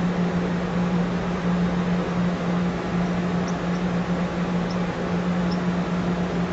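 Amtrak Pacific Surfliner train idling at the platform: a steady machinery hum with one constant low tone.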